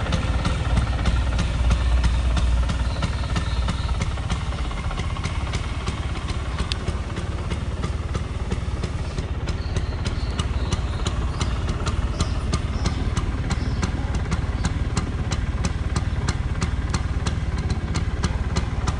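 Vespa 150 Standard scooter's single-cylinder two-stroke engine idling steadily, with a regular light ticking.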